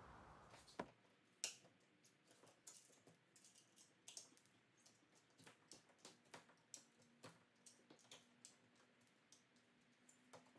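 Faint, irregular clicking and ticking as a razor blade is dragged along the rubber weather seal around the tailgate glass, cutting the seal while it is pulled back. A faint steady hum comes in about halfway.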